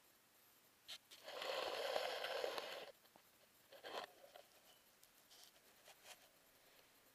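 Handling noise from a small action camera being moved over a model railway layout: a scraping rub lasting under two seconds about a second in, then a few short knocks.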